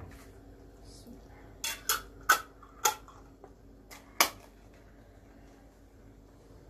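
A handful of sharp clinks of glass and metal over about three seconds as a filled jar of hot plum marmalade is handled and its screw lid is put on and turned tight.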